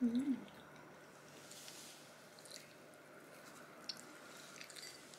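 Quiet eating sounds: soft chewing and a few light clicks of chopsticks, after a short wavering hummed 'mm' at the very start.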